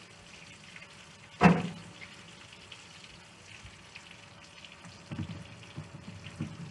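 Chicken thighs frying in a pan, a steady light sizzle with small crackles. One sharp knock about a second and a half in, and a few soft bumps near the end.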